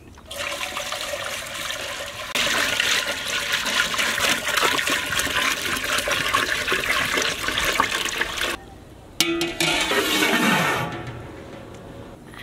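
Water poured from a plastic jerrycan into a large aluminium pot, splashing and gushing, growing stronger after about two seconds and stopping about eight and a half seconds in. A second, shorter burst of sound follows about nine seconds in.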